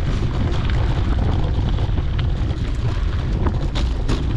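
Wind buffeting the microphone of a GoPro on a moving mountain bike, a steady low rumble, mixed with tyre noise on a dirt road. A few sharp clicks come near the end.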